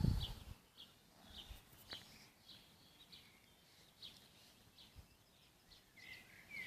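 Faint small-bird chirps, short high notes repeating every half second or so over a soft background hiss, with a falling call near the end. A brief low rumble sounds at the very start.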